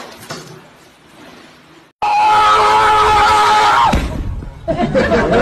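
A loud screaming cry starts suddenly about two seconds in and is held at one steady pitch for about two seconds, followed by shorter, broken cries.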